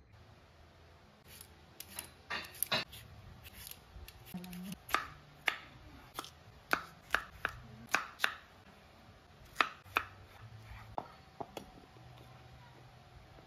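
Knife chopping peeled raw potatoes on a wooden cutting board: a run of sharp knocks as the blade goes through and hits the board, about two a second, fading out about eleven seconds in.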